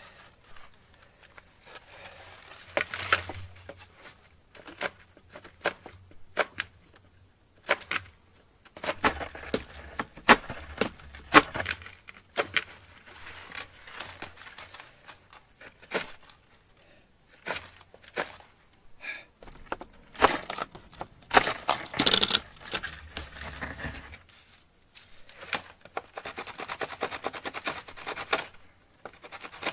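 Plant-fibre cord being pulled tight and wrapped around the end of a wooden pole: irregular crackles, snaps and rustling of fibre rubbing on wood, with a fast, rasping run of ticks near the end.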